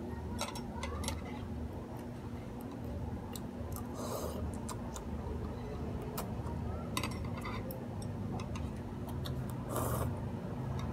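Eating noodles with metal chopsticks: irregular sharp clicks of the chopsticks against each other and the plate, with slurps about four seconds in and near the end, over a steady low hum.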